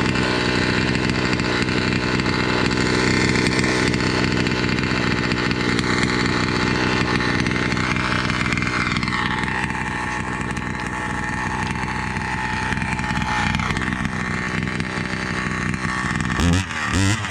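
Two-stroke chainsaw with a modified exhaust running steadily, then revved in short, quick throttle blips near the end.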